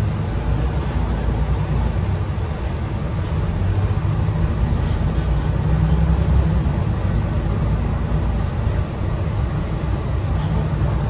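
Euro V MAN NL323F single-deck bus's diesel engine running under way, heard from inside the passenger cabin as a steady low drone with road and tyre noise. It swells a little in the middle and dips briefly about nine seconds in.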